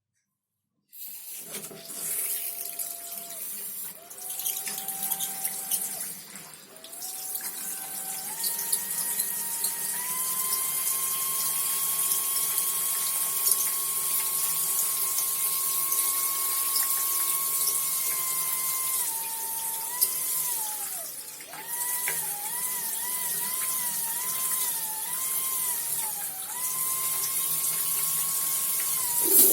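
Whistling plumbing over the hiss of running water. The whistle holds one note at a time and steps up in pitch several times, holds a long steady note, then warbles up and down several times before settling again.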